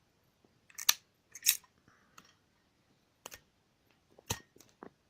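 A cheap Bull brand Zippo-style petrol lighter being worked by hand: about five sharp metal clicks and clacks from its hinged lid and flint wheel, spaced irregularly, the loudest about a second and a half in.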